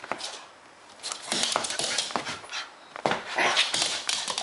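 Dog right up at the microphone making excited play noises, with a fast run of scratchy clicking from about a second in.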